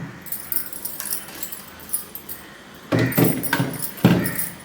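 Plastic food containers and lids being handled while fridge items are sorted, with light rattling and clinking. It is louder in the second half.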